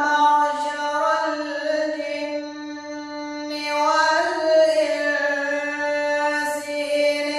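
A single voice singing long, held melodic notes with no words heard. The pitch shifts and rises briefly about halfway through before settling into another held note.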